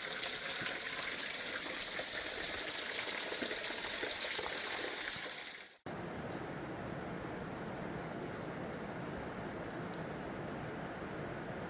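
Steady rush of flowing creek water, bright and hissy; about six seconds in it cuts to a duller, slightly quieter rush of water.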